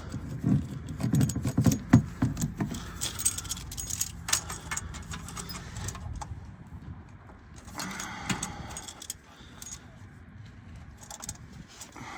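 Metal clinks, rattles and scraping from hand tools and parts being handled during oil filter work under a car, busiest in the first couple of seconds.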